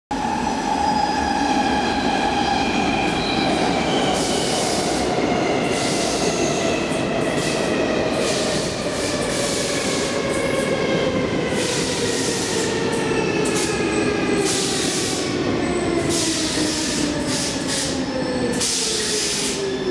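Stockholm Metro C14 train pulling into a station and braking, its whine falling steadily in pitch as it slows, with repeated bursts of high hiss from wheels and brakes.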